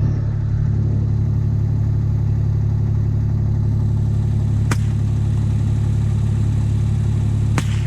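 Kubota utility vehicle's engine running steadily at a low, even speed, with two faint clicks, one about halfway and one near the end.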